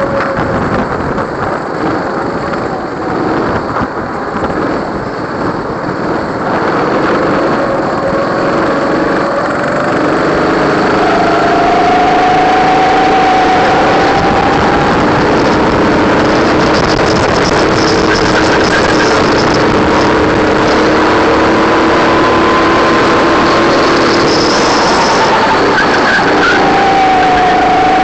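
Go-kart engines heard from onboard during a race: a steady engine drone whose pitch rises and falls as the karts accelerate out of corners, with several engines sounding at once. It gets louder about ten seconds in.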